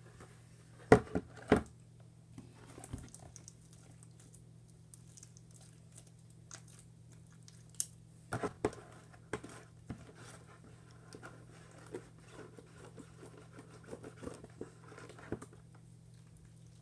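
Homemade glitter-glue slime being kneaded and stretched by hand: scattered squishing, sticky pops and clicks, loudest around a second in and again about eight seconds in, with smaller crackles between. A steady low electrical hum underneath.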